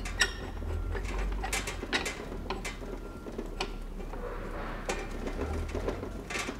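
Metal booster tank of an SRA 250 hydrogen water welder being screwed by hand onto its booster block: irregular light clicks and rubbing of the threaded parts, over a low steady hum.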